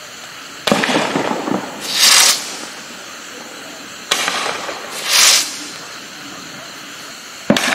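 Winda Cyclone 7 seven-shot fireworks cake firing shot by shot. About a second in a tube launches with a sharp thump, and about 1.4 s later comes a short, loud hiss as the ball breaks into spinning silver. The same launch and hiss come again a few seconds later, and a third shot launches near the end.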